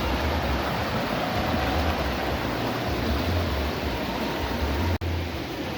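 Swollen river rushing steadily, running high and fast after the hurricane, with uneven low rumbling from wind on the microphone. The sound cuts out for an instant near the end.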